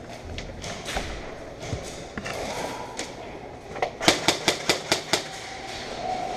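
Airsoft gunfire: a few scattered single cracks, then a quick string of about six shots at roughly five a second, about four seconds in.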